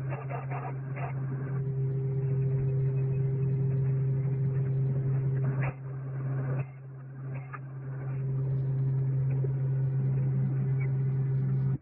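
Steady low mechanical hum with a few clicks over it; it dips briefly about six seconds in and stops abruptly at the end.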